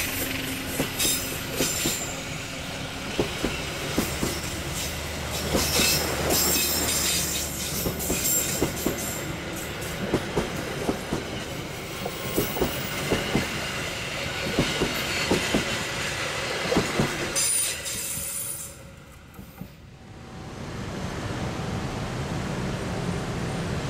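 Passenger train coaches rolling past close by, their wheels knocking over rail joints in a fast, uneven clickety-clack over a steady running rumble. Near the end the sound drops away and gives way to a steady, even background hiss.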